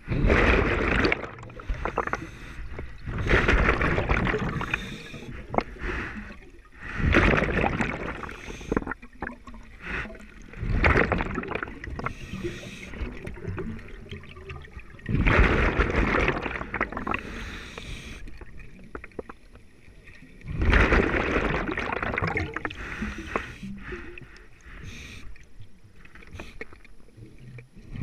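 Scuba diver breathing underwater: exhaled bubbles rush and gurgle past the camera in loud bursts roughly every three to five seconds, with quieter gurgling between breaths.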